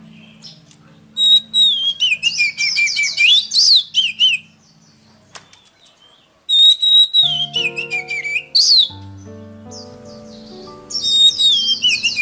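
Oriental magpie-robin song in three bursts of rapid whistled phrases. Each burst opens on a held high note and then slides down into quick trills and chatter. Background music of held low notes plays underneath.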